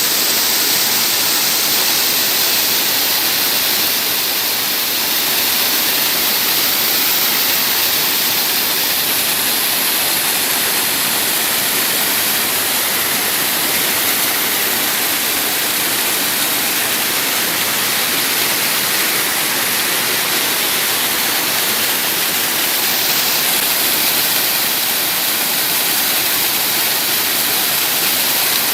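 Waterfall rushing, a loud, steady rush of falling water with no breaks.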